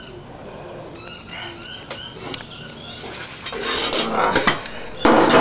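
Small birds chirping in the background with a few knocks. From about three and a half seconds in, a louder rustling clatter as a loaded wheelbarrow is taken by its handles.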